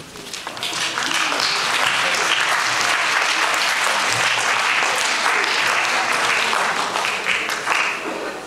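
Audience applauding: the clapping builds over the first second, holds steady, then dies away near the end.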